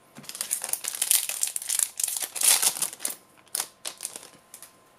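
Foil wrapper of a Yu-Gi-Oh booster pack crinkling and rustling as it is opened, for about three seconds, followed by a few short clicks as the cards are handled.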